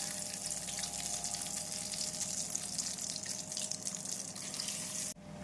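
Marinated, egg-and-cornflour-coated chicken pieces deep-frying in hot oil in a kadai, with a steady crackling sizzle that cuts off suddenly near the end.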